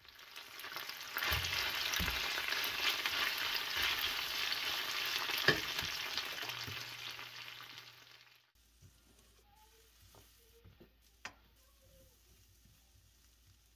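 Potato gnocchi sizzling as they fry in a pan with bacon and mushrooms, with a few sharp knocks. The sizzle fades away about two-thirds of the way through, leaving near silence.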